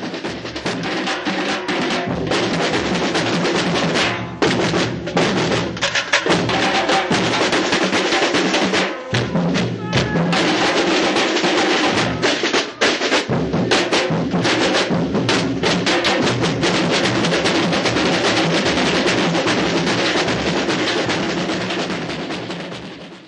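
Samba school bateria playing a batucada with no singing: massed drums and percussion in a dense, driving rhythm, with a few short breaks. The sound fades out near the end.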